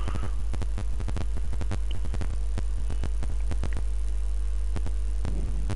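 Steady low electrical mains hum from the recording setup, with irregular faint crackling clicks.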